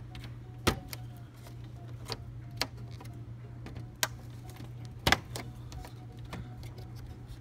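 A handful of sharp plastic clicks and knocks from a flathead screwdriver pressing down the plastic retaining clips of a BMW E60 kidney grille, the loudest about two-thirds of a second in and about five seconds in, over a steady low hum.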